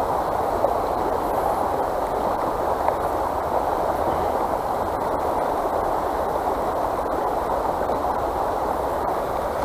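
Flowing river water rushing steadily, with no breaks or distinct events.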